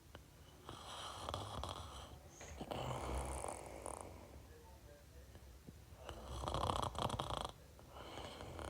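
Snoring in two slow breaths, each a noisy in-breath followed by an out-breath, with a pause of about two seconds between them.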